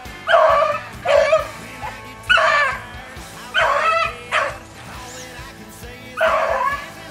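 Beagles baying on a rabbit's trail: about six separate drawn-out bays in a loose rhythm, each about half a second long, with background music underneath.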